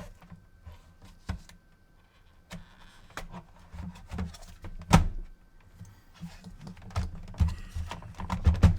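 Irregular clicks, taps and knocks of hands handling the plastic and metal internal parts of an opened PS4 console, with the loudest knock about five seconds in and a busier run of clicks near the end.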